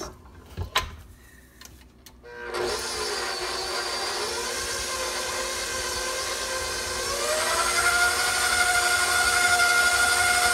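Tilt-head stand mixer switched on after a few light knocks, its motor running steadily as the beater works flour into creamed butter in a steel bowl. About seven seconds in, its whine rises in pitch and gets louder as the speed goes up.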